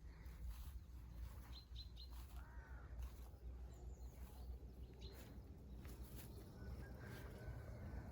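Faint outdoor ambience with a steady low rumble and scattered bird calls: a few quick high chirps about a second and a half in, a short warbling call near three seconds, and a thin whistle near the end.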